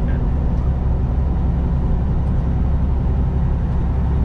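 Semi-truck's diesel engine and road noise heard from inside the cab while cruising under load, a steady low drone.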